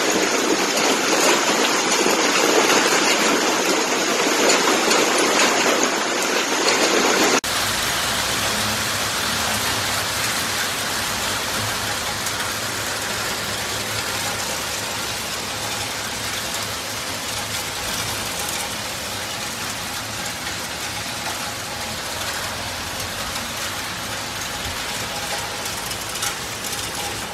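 Hail mixed with rain pelting pavement and parked cars: a dense, steady hiss. About seven seconds in it cuts abruptly to a second recording, a little quieter and deeper, with a fine patter of separate hailstone impacts.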